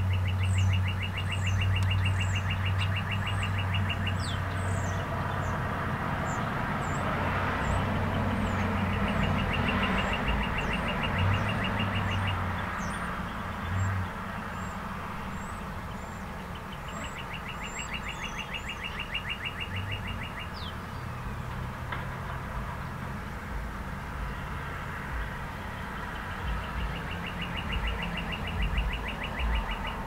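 Light road traffic: a low engine hum and tyre noise, with a vehicle passing about a third of the way in, then quieter. Over it, birds give short high chirps, and a rapid, even trill lasting a few seconds repeats about every nine seconds.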